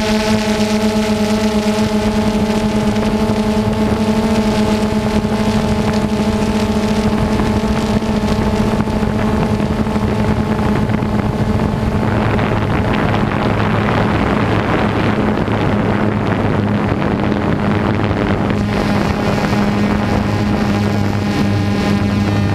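DJI Phantom quadcopter's electric motors and propellers humming steadily at one pitch, heard from the GoPro slung beneath it. A rushing wind noise on the microphone grows louder about halfway through.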